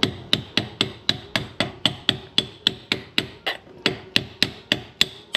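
Hammer tapping a motorcycle's toe shift lever onto its splined shift shaft, about four quick strikes a second, each with a short ring. The lever is a tight fit on the splines and is being driven on by force.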